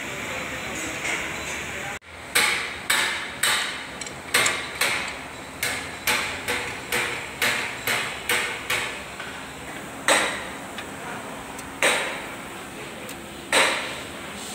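Hammer blows on metal: about a dozen strikes at roughly two a second, each ringing briefly, then three slower single blows nearly two seconds apart. Before them, about two seconds of steady workshop noise that cuts off abruptly.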